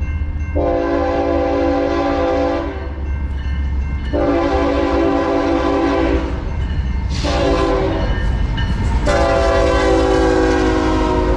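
Diesel locomotive air horn on an approaching BNSF intermodal freight train, sounding the grade-crossing signal: two long blasts, a short one, then a long one. A steady low rumble of the locomotives runs beneath it.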